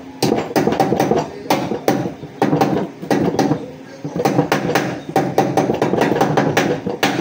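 Rapid hammer strikes on metal, several a second, in bursts with short pauses.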